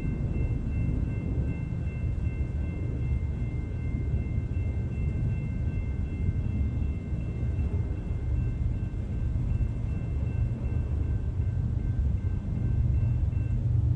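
Low, steady rumble of an approaching freight train, with faint high ringing tones over it that stop near the end.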